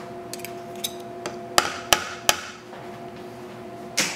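Metal garlic press working a garlic clove: a few light clicks, then three sharp knocks in quick succession about a second and a half in as the press is knocked to clear the crushed garlic, and another thump near the end.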